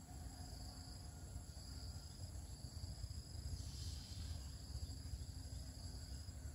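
Insects, crickets or similar, trilling steadily in several high, unbroken tones, over a low rumble.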